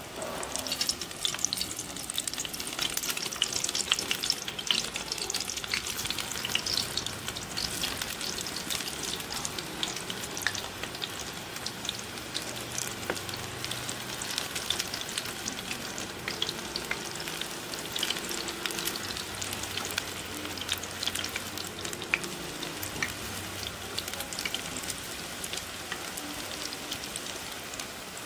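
Spinach pakoras deep-frying in hot oil, a dense crackling sizzle. It is loudest over the first several seconds, as fresh batter goes in, then settles to a steadier sizzle.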